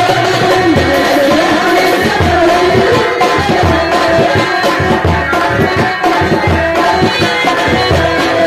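Ghazal music, an instrumental passage: tabla strokes keep a steady, quick rhythm under a sustained melodic line.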